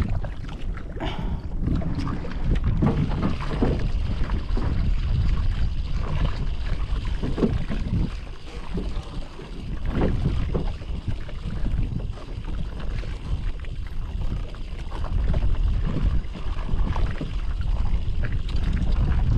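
Wind buffeting the microphone, with choppy water slapping irregularly against the hull of a small boat.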